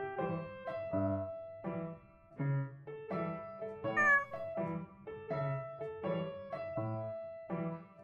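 Piano music, a steady run of melody notes over a bass line. A cat meows once, briefly, about four seconds in.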